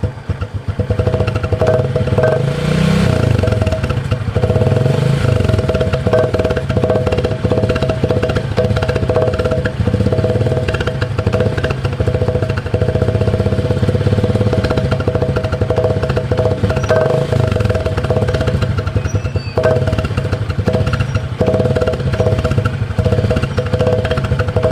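Honda Supra X 125 underbone motorcycle's single-cylinder four-stroke engine running with a tin can held over the exhaust outlet, giving a steady buzzing hum with two held tones on top. The engine is revved briefly a few times.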